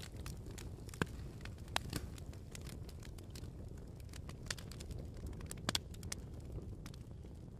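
Crackling fire: scattered sharp pops and snaps over a low, steady rumble.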